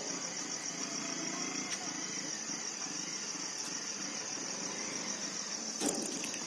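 High-pitched insect chorus, a steady fast-pulsing buzz, over a faint low hum, with a short knock near the end.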